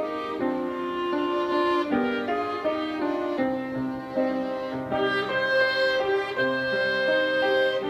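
Live chamber music: two violins and a clarinet playing a melody in held and moving notes, with piano accompaniment.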